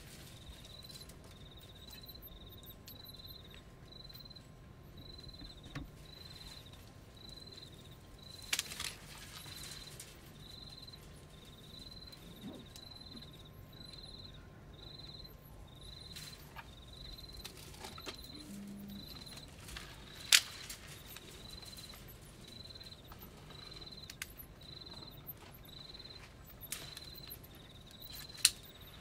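An insect chirps at a steady high pitch about twice a second over a faint low hum. An African elephant browsing at a wire fence breaks branches with a few sharp snaps, the loudest about twenty seconds in.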